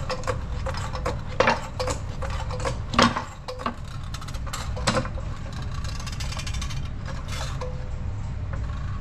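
Scattered sharp knocks and clicks, the loudest about three seconds in, over a steady low rumble.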